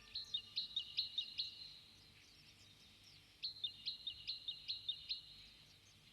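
A bird chirping in two quick runs of about half a dozen short, high, falling notes each, with a pause of about two seconds between the runs.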